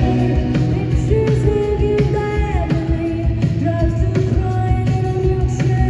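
Live rock band in concert: a woman's lead vocal singing over electric guitars, keyboards and drums, recorded from the audience.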